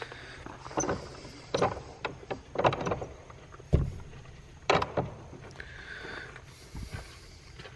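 A series of irregular knocks and scuffs, roughly one a second, with a brief faint squeak near the end.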